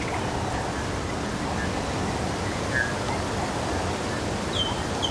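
Steady hiss of open outdoor ambience, with a few faint chirps and a short falling whistled call near the end.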